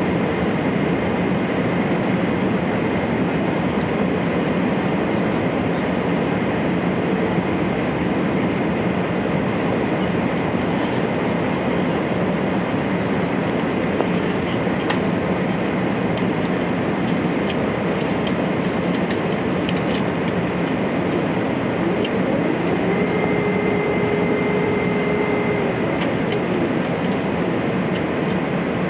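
Steady cabin noise of an Airbus A380 in flight, from its engines and the airflow over the fuselage. About two-thirds of the way through, a faint tone rises, holds for a few seconds, then falls away.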